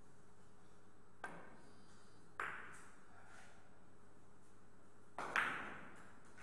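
Billiard balls on a carom table clacking as they are struck and collide: four sharp knocks, a small one about a second in, a louder one a little later, then a close pair near the end, the last the loudest, each ringing briefly.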